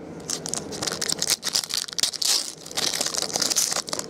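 Foil wrapper of a 2012 Bowman Draft baseball card pack being torn open and crinkled, a run of crackles that is loudest in the second half.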